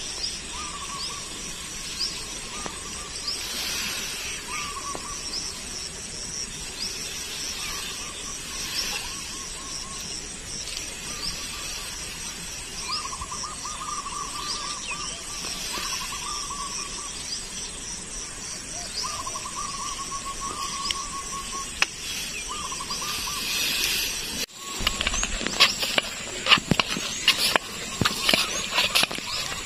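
Outdoor evening ambience of birds and insects: many short high chirps and a repeated call that comes and goes for about a second at a time, over a steady hiss. About 25 seconds in it cuts to a burst of rustling and sharp clicks from someone moving through tall grass and handling net shrimp traps.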